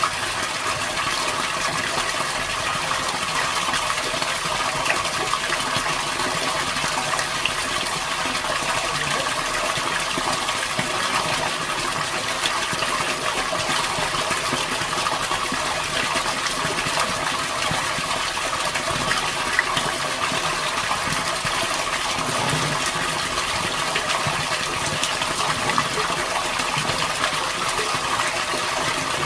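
Water gushing steadily.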